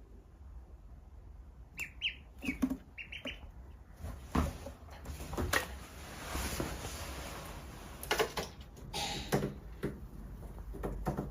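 A duckling peeping a few short, high times about two seconds in, followed by scattered knocks, clicks and a stretch of rustling.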